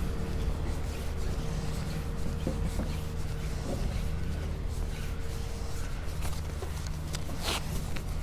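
Steady low rumble with handling rub from a camera carried while walking along a pavement, with scattered light clicks and a faint steady hum that stops about seven seconds in.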